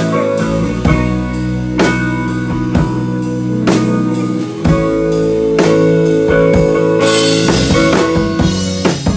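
Live indie rock band playing an instrumental passage: distorted electric guitars holding chords over a steady drum beat. Cymbals wash in about three-quarters of the way through.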